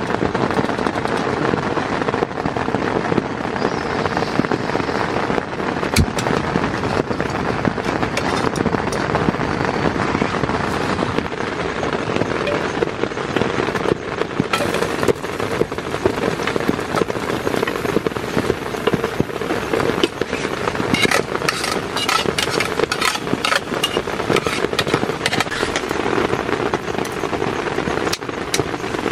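Heavy rain falling on a tent, a dense steady crackling patter. A single sharp click comes about six seconds in, and brighter, crisper crackling joins from about halfway.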